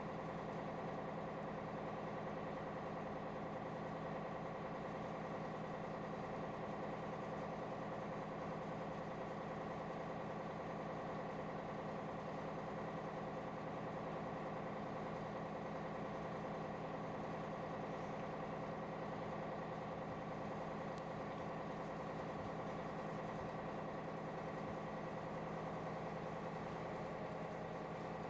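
A large cargo ship's diesel engine running steadily as the ship moves past under way, an even hum made of several steady tones.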